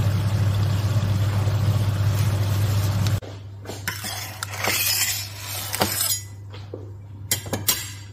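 Garlic prawns sizzling in sauce in a frying pan, a steady sizzle over a low hum. About three seconds in it cuts to crinkling baking paper and a few sharp clinks as a baked cake in its paper lining is handled on a steel worktop.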